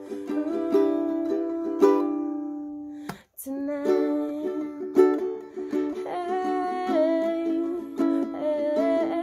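Ukulele strummed in chords in a small room. The playing breaks off for a moment about three seconds in, then resumes.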